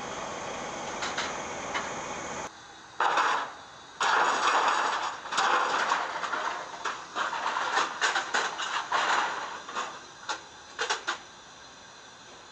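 A steady hiss, then from about three seconds in, irregular loud clanking and rattling of a car-carrier trailer's steel ramps as an electric Ford F-150 Lightning pickup is driven up onto the deck, with no engine sound.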